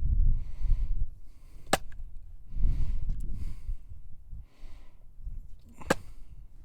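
Wind buffeting the microphone in uneven low gusts, with two sharp clicks or knocks, one about a second and a half in and another near the end.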